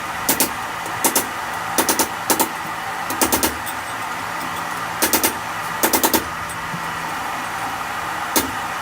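Quick clusters of two to four sharp metal strikes, repeated about eight times with short gaps, the last a single strike, over a steady rushing hiss.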